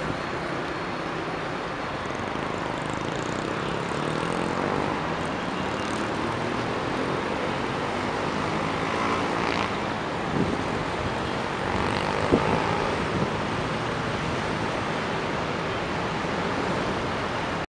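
Steady city traffic noise from a busy multi-lane avenue, with a couple of short, sharper sounds about ten and twelve seconds in.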